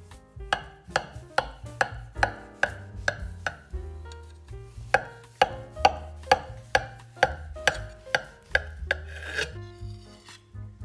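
A knife sawing through the crust of a sponge cake: even back-and-forth scraping strokes, about two a second, in two runs with a short pause between. Soft background music plays underneath.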